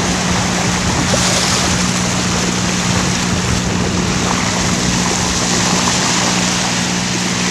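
Water rushing past the bow of a sailboat under way, with wind on the microphone and a steady low hum underneath.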